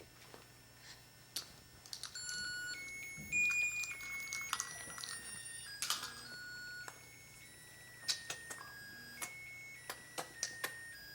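Toy remote control giving short electronic beeps and tones that jump between pitches as it is pressed and knocked, with clicks and taps of its buttons and casing.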